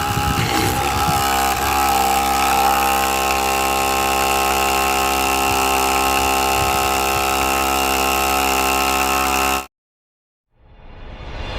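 Air compressor's motor running steadily, with an even hum and whine, driving a homemade water pump. It cuts off abruptly near the end, and music begins to fade in.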